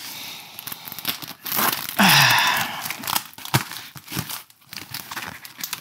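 Large cardboard shipping box being torn open by hand: cardboard and packing tape crinkling and rustling with scattered small clicks, and one loud tearing rip about two seconds in.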